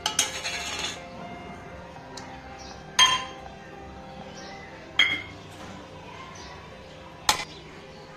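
Small stainless-steel bowls clinking against the serving bowl as ingredients are tipped in: a short ringing rattle at the start, then three sharp metallic clinks about two seconds apart.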